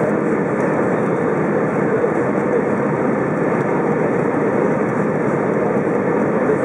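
Steady cabin noise of an Airbus A320 in flight, heard from a window seat over the wing: engine hum mixed with rushing air.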